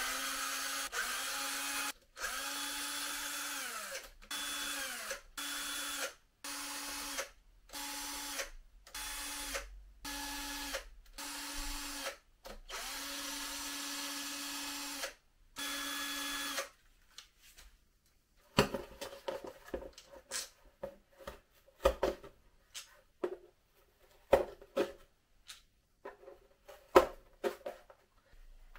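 Cordless drill-driver backing out the bolts of a motorcycle engine's cylinder-head cover: about a dozen short bursts of the motor, each spinning up and winding down. After these comes a stretch of light clicks and knocks as the bolts and tool are handled.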